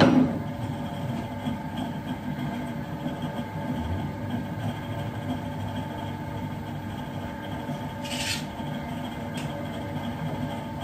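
Metal lathe running with a steady hum while something rubs and scrapes against the Snider-Enfield rifle barrel's muzzle as it turns. A sharp clunk right at the start is the loudest sound, and there is a short higher scrape about eight seconds in.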